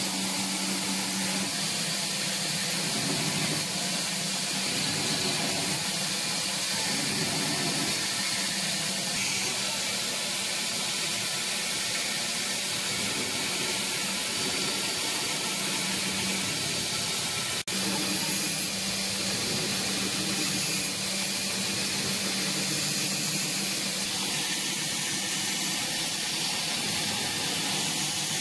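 Belt grinder running, a steady hiss over a motor hum, as a 440C steel knife blade is ground against the abrasive belt. The sound briefly drops out about two-thirds of the way through.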